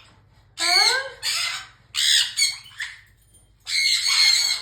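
Green-winged macaw squawking: three loud, harsh calls with a pitch that bends up and down, separated by short pauses.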